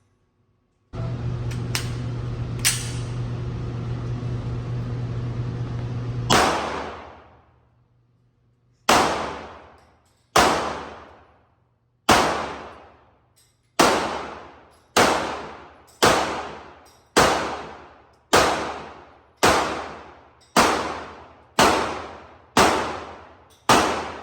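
Handgun fired in slow, steady succession: about fourteen sharp shots, each ringing out in a long tail, roughly one every second. Before the first shot a steady hum runs for about five seconds.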